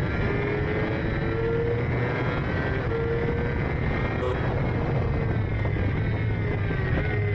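Racing sidecar's engine running hard under a rush of wind noise. The engine note climbs over the first few seconds, then eases down near the end.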